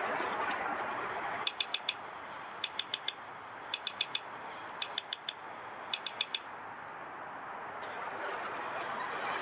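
Small electric motor and plastic gearbox of a Radio Shack remote-control Sherman toy tank whirring steadily. From about a second and a half in, five quick bursts of four sharp clicks come about once a second, then stop.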